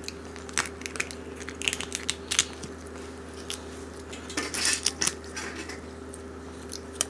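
Shells of giant river prawns being cracked and pulled apart by hand: a scatter of short clicks, snaps and crackles, busiest about two-thirds of the way through, over a low steady hum.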